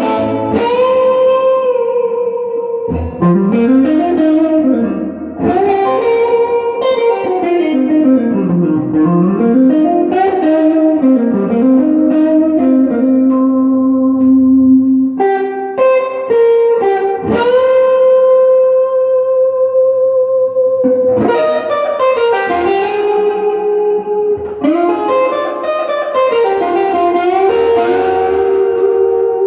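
Electric guitar, a Gibson Les Paul with Classic 57 humbuckers, played through an Earthquaker Devices Ghost Echo reverb pedal into a Fender Pro Junior III tube amp. Picked notes and chords ring out, with several notes bent up and down in pitch and long sustained notes.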